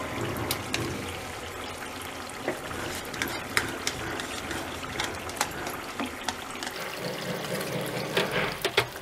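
Silicone spatula scraping and tapping thick yogurt out of a plastic tub into a pan of simmering chicken gravy, in scattered short clicks, over a steady watery hiss.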